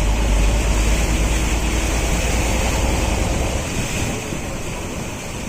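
Wind buffeting the microphone outdoors, a heavy low rumble over a steady rushing noise, that drops away about three and a half seconds in.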